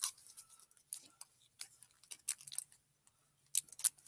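Pokémon trading cards being handled and shuffled: sporadic light clicks and rustles of card stock.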